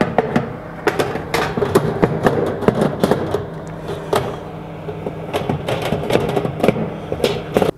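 Metal baking tray being slid onto an oven's wire rack, scraping and clattering with many irregular sharp knocks and clicks over a steady low hum.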